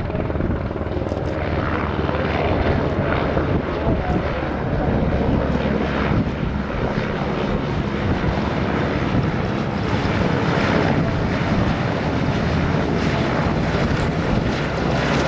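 AgustaWestland AW101 Merlin helicopter flying low past, its three turbine engines and rotor making a loud, steady noise.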